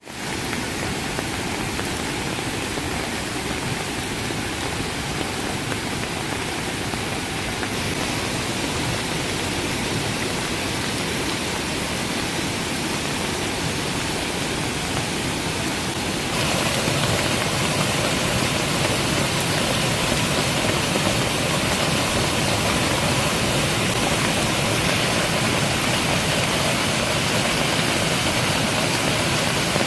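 Muddy debris-flow water rushing and cascading over a roadside wall onto a flooded road: a steady, loud wash of water noise that gets louder a little over halfway through.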